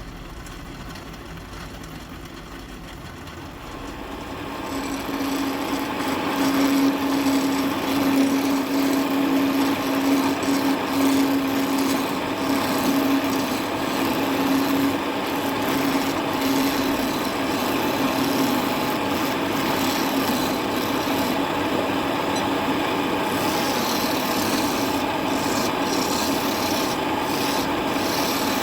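Wood lathe running while a turning tool cuts and scrapes a spinning wooden spindle. It is quieter for the first four seconds or so, then the cutting grows louder over a steady hum.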